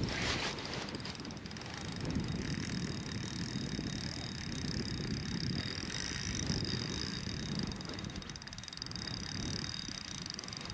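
Spinning reel ticking steadily, fast and fine, as an angler works a heavy fish that will not come off the bottom, over a low rush of wind.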